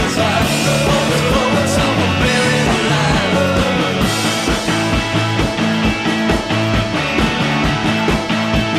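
Rock music with a steady drum beat and a sung vocal line in the first few seconds.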